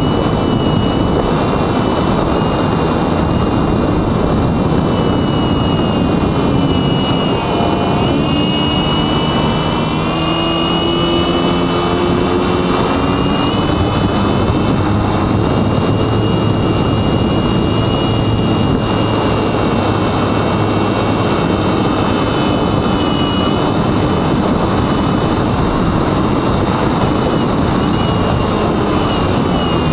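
Sunnysky X2220 brushless motor spinning a 9x7.5 propeller on a mini Talon wing in flight, a high whine that rises and falls in pitch with the throttle. Heavy wind noise rushes over the onboard camera's microphone.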